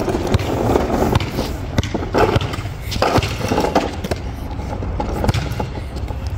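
Hard plastic wheels of a toddler's ride-on toy car rolling over cracked asphalt, a continuous gritty rumble with frequent small knocks as they hit cracks and bumps.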